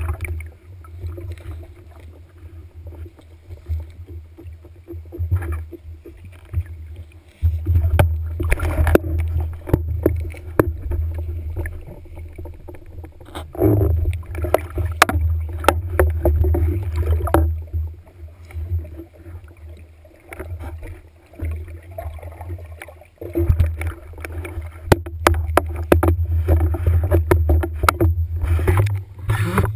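Muffled underwater water noise picked up by a camera in its housing mounted on a speargun: a low rumble that swells in long surges, about 7, 13 and 23 seconds in, as the gun is moved through the water, with scattered clicks and knocks on the housing and gun.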